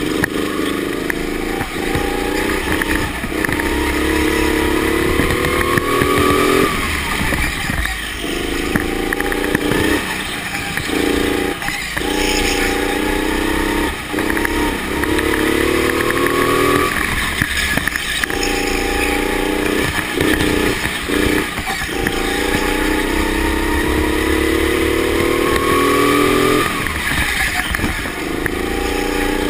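Go-kart engine heard from onboard, climbing in pitch as it accelerates along each straight and dropping away when the throttle is lifted for the corners, several times over.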